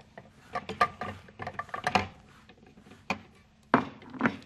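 Kitchen utensils and dishes handled on a countertop: a run of light clicks and scrapes, then a few sharp knocks near the end.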